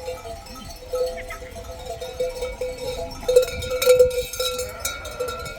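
Livestock bells clanking irregularly as the animals move, with a few louder clangs about three to four seconds in.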